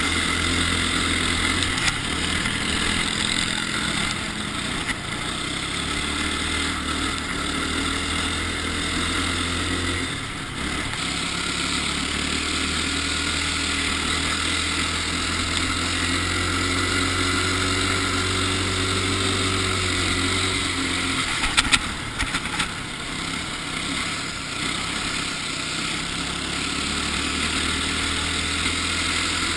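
Ice go-kart engine running under way, heard onboard the kart, with a steady rush of wind and driving noise over it. A brief cluster of sharp clicks comes about three quarters of the way through.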